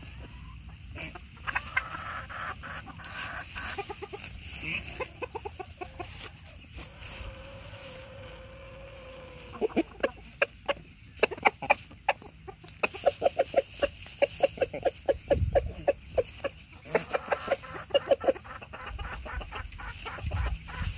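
A flock of chickens, a rooster and hens, clucking as they forage: scattered calls at first, one long held note about a third of the way in, then long runs of quick repeated clucks over the second half.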